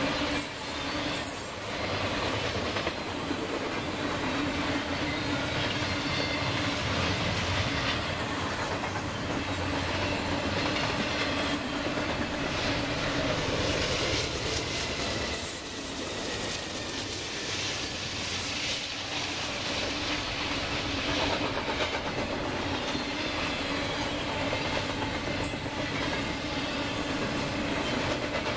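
Freight train of double-stack container cars rolling past, with the steady rumble and clatter of steel wheels on the rails and faint thin squeals now and then. About halfway through, a pair of mid-train GE diesel locomotives runs by as distributed power.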